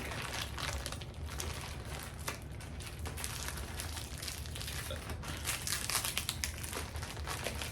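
Plastic shipping package crinkling and rustling as it is handled and opened, a continuous run of small crackles.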